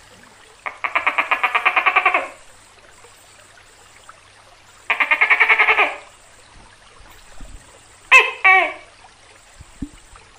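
Tokay gecko calling: two rapid rattling croaks of about a second each, then near the end two short barking notes that fall in pitch, the opening pair of its 'to-kay' call.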